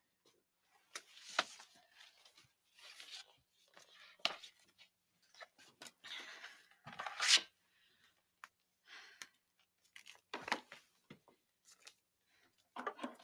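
Quiet, irregular rustling and clicking of vinyl records and paper sleeves being handled at a console record player, with the loudest rustles about seven and ten seconds in.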